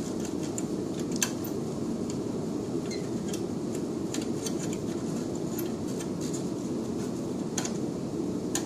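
Small irregular clicks and taps as gloved hands slide the collimator lamp's shield housing back into place on the X-ray machine's collimator, the sharpest click about a second in, over a steady low room hum.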